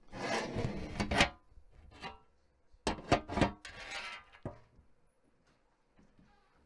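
Handling noise from a live handheld microphone being laid down on a music stand: rubbing and knocking. Then, about three seconds in, a few sharp knocks and rustling as a Bible is lifted off the stand. The sounds die away in the last couple of seconds.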